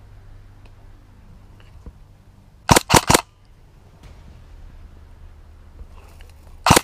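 Airsoft electric gun (AEG) firing two short bursts of a few shots each, the first about three seconds in and the second near the end.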